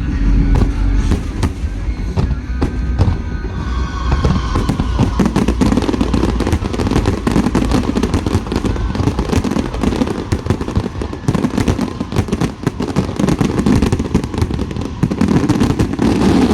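Aerial fireworks display going off in a dense, continuous barrage: rapid overlapping bangs and crackles over a steady low rumble.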